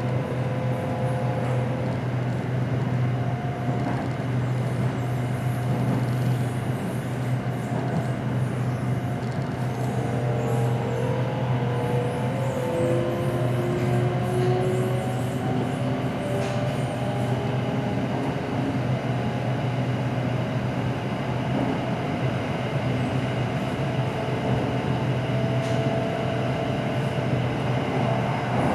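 SRT Red Line electric commuter train running at reduced speed, the slow running put down to thieves cutting its signalling cables. It makes a steady low hum, with faint motor tones that slowly glide in pitch and some light clicks from the running gear.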